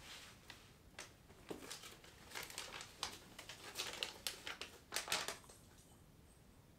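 A folded sheet of lined notebook paper crinkling faintly as it is picked up and unfolded: a run of small crackles from about a second in until near the end.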